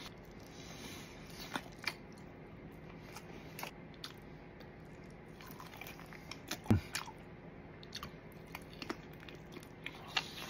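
A person chewing mouthfuls of braised chicken close to the microphone, with irregular small wet clicks and smacks, and one louder, lower mouth sound about two-thirds of the way in.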